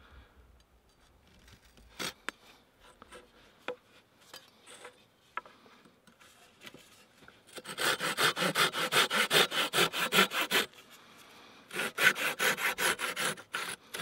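Fine-toothed Silky folding pruning saw cutting through a 3/4-inch wooden dowel in quick back-and-forth strokes, about five a second. There is one run of about three seconds starting about halfway in, and a shorter run near the end. Before that come only a few light clicks and taps of handling.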